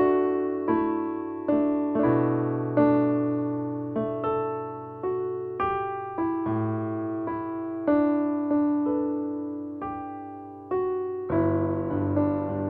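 Background music: slow, gentle piano on a soft electric-piano sound, notes and chords struck one after another and left to fade, with a fuller chord near the end.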